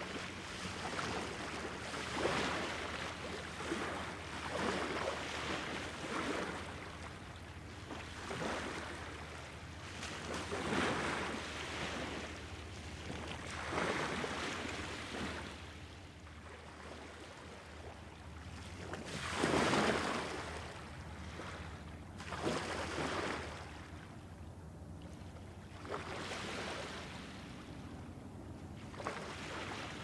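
Lake water lapping and sloshing in repeated surges every two to three seconds, over a faint steady low hum.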